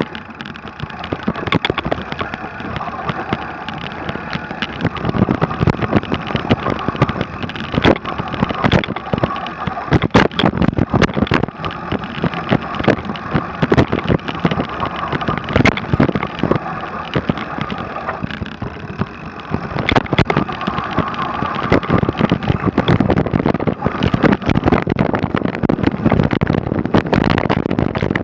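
Mountain bike ridden down a snowy trail: a continuous rumble of tyres and wind with frequent sharp clatters and knocks from the bike over bumps.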